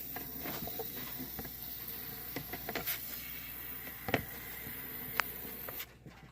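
Faint scattered clicks and light rustles from close handling, over a steady low hiss. The sound drops to near silence near the end.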